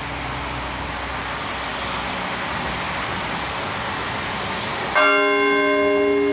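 Steady rushing noise, then about five seconds in a large church bell is struck once, loudly. Its deep hum and many higher overtones keep ringing on afterwards.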